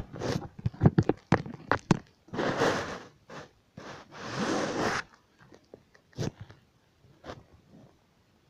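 Close-up rustling and scraping of bedding, with knocks against the phone, as a sphynx kitten plays on the blankets: a quick run of knocks, two longer rustles a couple of seconds in, then a few scattered taps.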